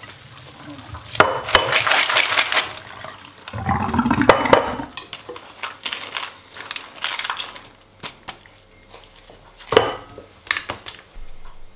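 Soaked beans rattling and shifting in a plastic colander as they are shaken and stirred by hand over a stainless steel sink, with some water, in a few bursts. A sharp knock near the end as the colander is set down.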